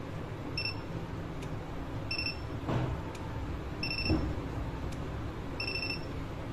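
A DIY battery spot welder's control board gives a short high beep each time its button is pressed to step to the next welding mode. There are four beeps, about one and a half seconds apart, each following a faint button click, with a couple of dull handling bumps between them.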